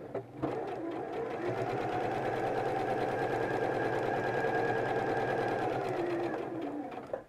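Domestic electric sewing machine running steadily as it sews a line of stitches, starting about half a second in, slowing slightly near the end, then stopping.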